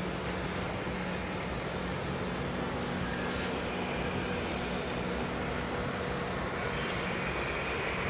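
Steady low drone of distant tugboat diesel engines working, with a few held low hum tones; a faint higher whine comes in about six and a half seconds in.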